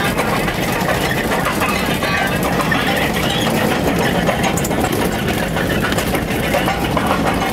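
Four-wheel-drive vehicle's engine running steadily with tyre and rattle noise from driving over a gravel dirt track, heard from inside the cab.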